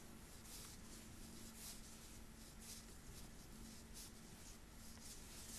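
Near silence: faint soft rustling of wool yarn and a Tunisian crochet hook as loops are worked, over a faint steady low hum.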